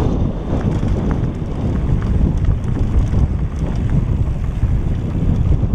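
Wind buffeting a helmet camera's microphone as a mountain bike rolls fast down a gravel dirt road, a steady low rumble with a few faint clicks from the tyres on loose stones.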